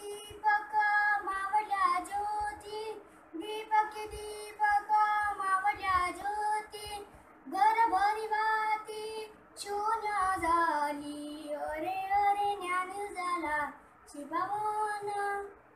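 A boy singing a Marathi devotional abhang solo, in long held, gliding phrases with short breaks for breath; the singing stops near the end.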